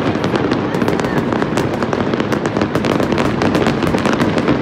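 A dense, unbroken barrage of fireworks: many rapid, overlapping cracks and bangs with no pause between them.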